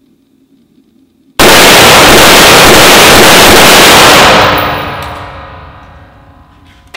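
Rapid gunfire from a 5.56 mm AR-15 short-barrelled rifle fitted with a magnetic recoil buffer, beginning abruptly about a second and a half in. The shots overload the recording into one continuous distorted blast for about three seconds, then the echo rings away over the next two.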